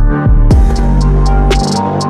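Electronic background music with deep bass, a sustained synth and a steady drum beat.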